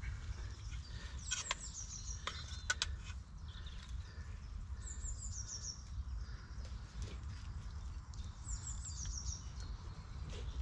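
A songbird singing the same short, high phrase of notes stepping downward three times, about every three and a half seconds, over a steady low rumble. A few sharp clicks sound in the first three seconds.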